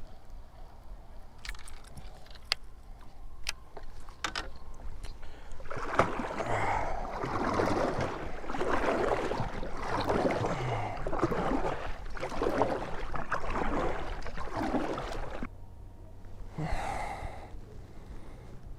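Kayak paddle strokes splashing in the water, a rhythmic swish about once a second that stops abruptly, after a few light clicks of gear on the hull.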